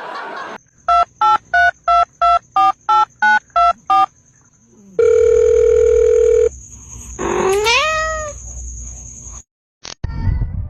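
A run of ten short electronic beeps at shifting pitches, about three a second, like phone keypad tones, then a held beep lasting about a second and a half. After it comes a single call that rises and then falls in pitch, like a cat's meow, and a sharp click near the end.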